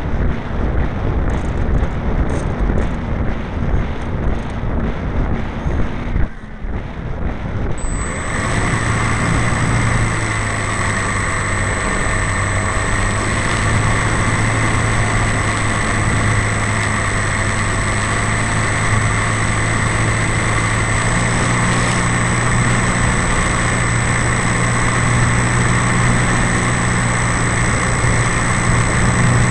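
Wind rushing over the onboard camera of a radio-controlled Piper model plane. From about eight seconds in, the model's engine comes in and runs steadily at one pitch under the wind, with a thin high whine.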